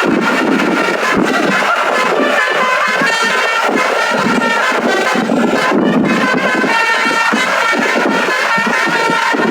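A bus's multi-tone 'basuri' telolet air horn playing a melody without a break, its reedy, trumpet-like tones changing note after note.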